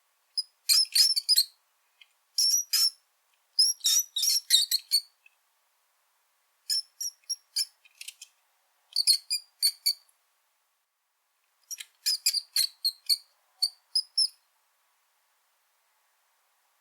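Brown rat squeaking: bursts of short, high-pitched squeaks in quick runs, with pauses of a second or two between bouts.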